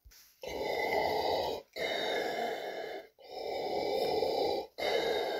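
A man breathing slowly and heavily into a mug held over his mouth, imitating Darth Vader's mask respirator: four long breaths, each a little over a second, with short pauses between.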